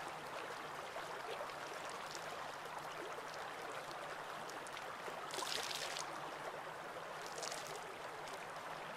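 Shallow rocky stream flowing steadily, with two short splashes, about five and a half and seven and a half seconds in.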